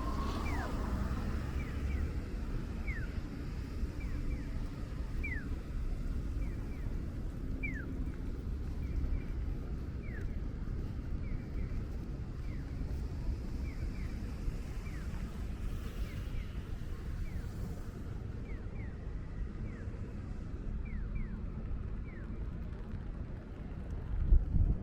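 Rainy city street ambience: a steady low rumble of traffic and wind, with scattered short, high falling chirps throughout and a brief louder low gust near the end.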